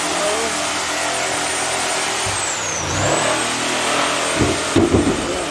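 Electric power saw running at full speed with a high whine, which dips in pitch briefly about two and a half seconds in as the blade takes load, then recovers. A few knocks come near the end.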